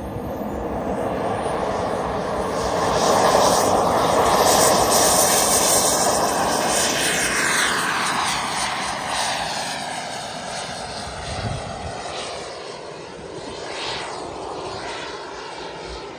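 JetCat 180 turbine of a large L-39 Albatros model jet making a pass: a jet roar that swells to its loudest a few seconds in, then drops in pitch and fades as the jet flies away.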